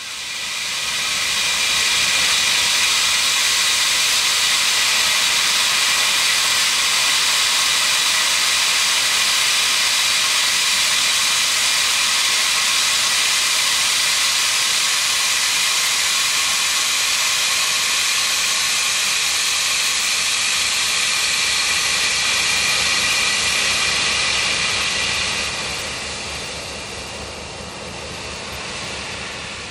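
Steam locomotive 3801, a C38-class Pacific, hissing loudly and steadily as steam escapes low at its front end while it passes. The hiss eases off about 25 seconds in.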